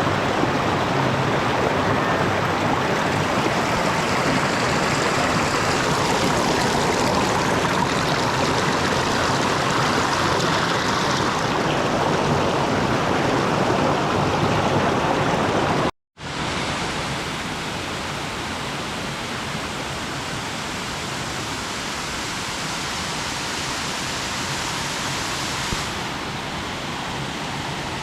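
Mountain stream or waterfall rushing steadily. It cuts out briefly about halfway through, then goes on a little quieter.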